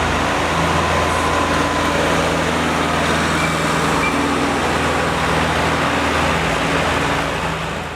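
Tractor engine running steadily, a low, even drone under a wash of arena noise, as the arena ground is dragged between groups of riders.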